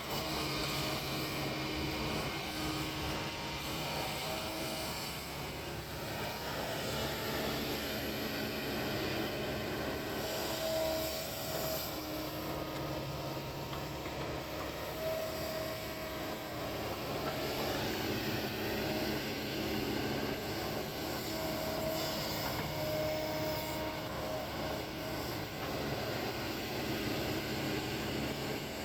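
Kobelco excavator's diesel engine running steadily while it works, with short whining tones that come and go every few seconds.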